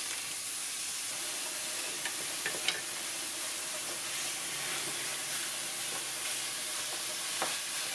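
Raw ground beef sizzling steadily in a hot stainless steel skillet as it is broken up and stirred with a wooden spoon, with a few short knocks.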